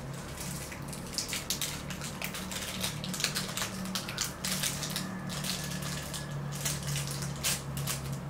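Crinkling and tearing of a plastic trading-card pack wrapper being opened by hand: a quick, irregular run of crackles.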